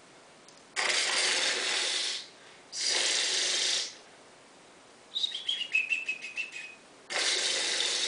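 A person imitating a squirrel with the mouth: three breathy hissing rushes of about a second each, and about five seconds in a rapid clicking chatter that steps down in pitch.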